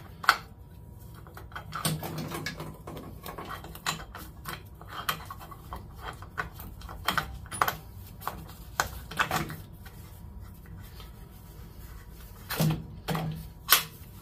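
Irregular metal clinks, rattles and knocks from a roller chain being worked onto the sprocket of a mini-bike CVT by hand. There is a sharp knock just after the start and another near the end.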